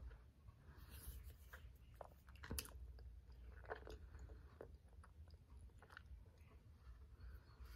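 Faint close-miked chewing of a soft tortilla wrap filled with black beans, vegetables and tomatoes, with scattered small mouth clicks and one sharper click about two and a half seconds in.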